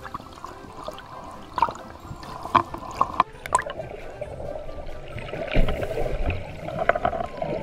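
Muffled underwater sound of water gurgling and sloshing around a submerged camera, with scattered sharp clicks through the first half and a few deeper thuds later on.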